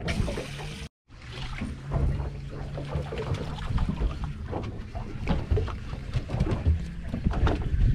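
Wind buffeting the microphone for the first second, then an outboard motor idling with a steady low hum, over water and wind noise. Many short knocks and clicks run through it as a fishing reel is cranked fast against a hooked fish.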